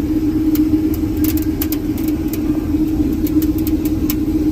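Combine harvester running steadily while cutting beans: an even mechanical noise with one constant low hum, and scattered light clicks.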